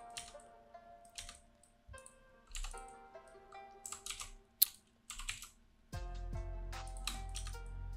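Computer keyboard keys and mouse buttons clicking in scattered single taps, one sharper click a little past halfway, over soft background music whose bass comes in about six seconds in.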